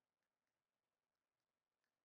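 Near silence, with a few very faint ticks.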